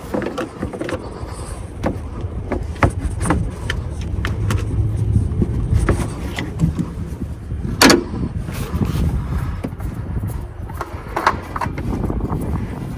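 Scattered clicks and knocks of tools and parts being handled during an oil change, over a low rumble, with one louder knock about eight seconds in.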